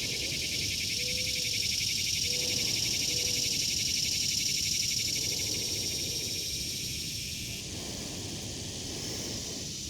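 Chorus of cicadas buzzing steadily with a fine, fast pulse, thinning a little near the end. A few faint short low calls sound early on.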